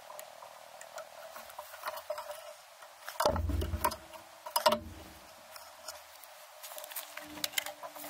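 Clicking and light knocking of hands and tools handled among copper refrigerant lines, with two heavier bumps, one about three seconds in and another a second and a half later.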